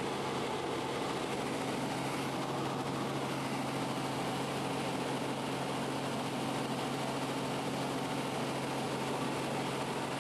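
Robinson R44 helicopter's piston engine and rotors heard from inside the cabin in cruising flight: a steady drone with a constant low hum and a wash of airflow noise.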